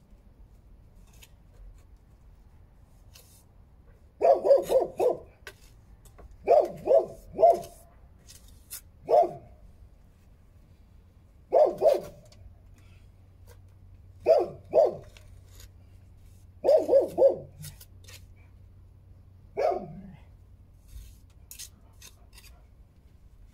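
A dog barking repeatedly, in short runs of one to four barks every two to three seconds.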